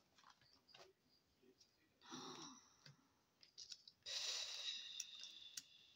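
Quiet handling of small cardboard stickers with a few light clicks, then a short breath about two seconds in and a long breathy sigh from about four seconds in.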